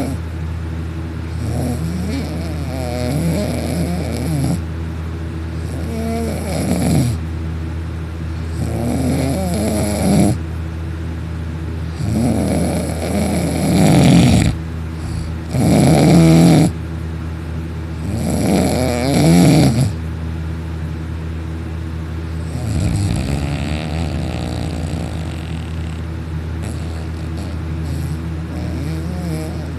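A young man snoring loudly in heavy, sleeping-pill sedated sleep: a rattling snore every two to three seconds, loudest in the middle and fainter toward the end.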